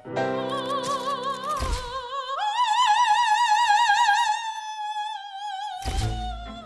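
Soundtrack music with an operatic soprano voice holding one long high note with wide vibrato. The note steps up about two seconds in and then slides slowly down. A low thud comes near the end, and the music carries on with a low beat.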